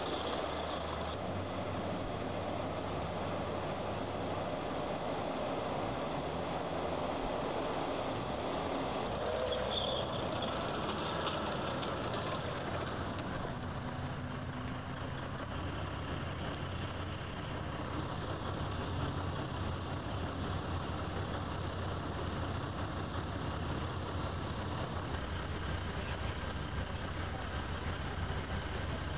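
Tracked armoured vehicle's engine running, a steady low rumble, with the sound changing abruptly a few times where the footage cuts.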